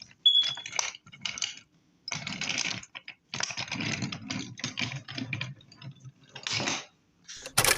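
Wooden toy engines and trucks clattering along wooden railway track, in irregular bursts of clicks and rattles with short pauses between.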